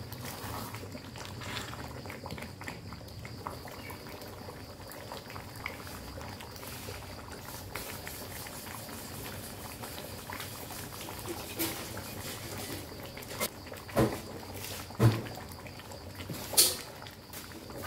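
Rendang gravy simmering in a wok, bubbling and crackling steadily. Near the end come three sharp knocks about a second apart.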